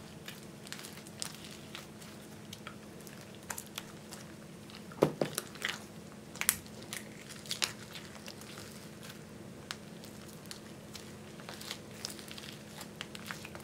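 Thick slime mixed with clay and makeup being stretched and kneaded by hand, giving irregular sticky crackles and pops. The loudest cluster of pops comes about five to six and a half seconds in.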